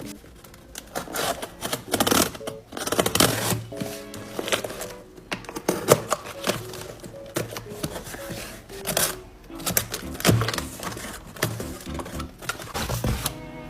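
Background music with dense, irregular clicking and crackling over it, as of packaging being handled and opened.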